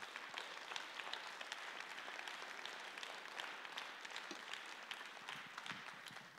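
Audience applauding: a dense patter of many hands clapping that thins out near the end.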